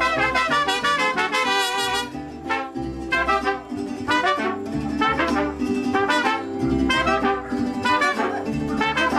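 Mariachi band playing live: trumpets leading over strummed guitars and the deep bass of a guitarrón. About two seconds in the trumpets ease back and the strummed strings come forward.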